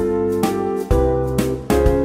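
Instrumental background music, led by a keyboard over a bass line, with a new note or chord about every half second.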